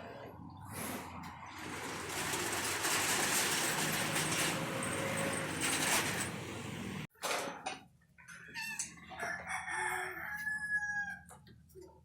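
A rooster crowing with chicken clucks. The loud stretch cuts off suddenly about seven seconds in, and scattered softer sounds follow.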